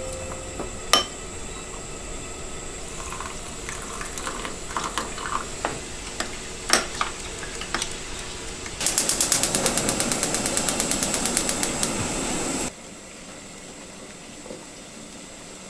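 A metal spoon stirring a white slurry in a glass measuring pitcher, clinking quickly and evenly against the glass at about eight strikes a second for nearly four seconds. Before that, a few single clinks of glassware being handled and set down.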